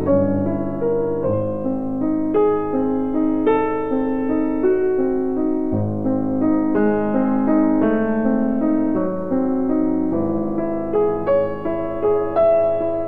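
Background piano music: a melody of single notes over chords.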